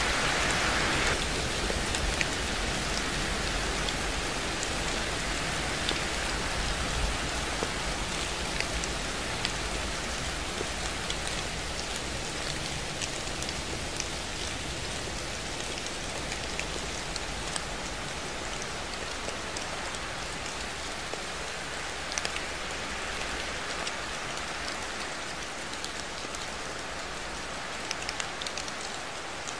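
Steady rain falling, an even hiss with scattered drop ticks, growing slightly quieter toward the end.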